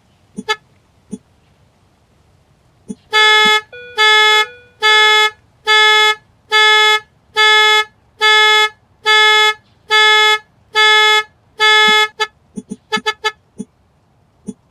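Car horn pulsing in a panic alarm: eleven evenly spaced short honks, a little more than one a second, that then stop. A few sharp clicks come before the honking and a quick run of clicks follows it.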